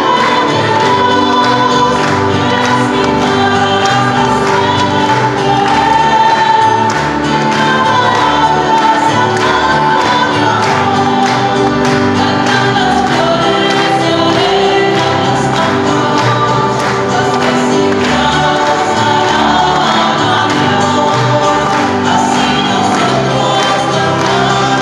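Choir singing a Spanish-language Catholic entrance hymn with instrumental accompaniment and a steady beat.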